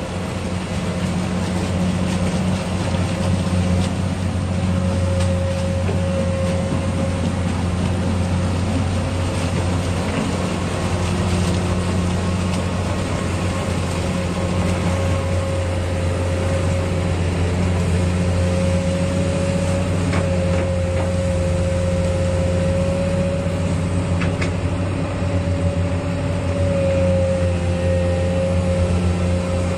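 Heavy diesel engine running steadily at an even speed, with a steady whine above its low hum.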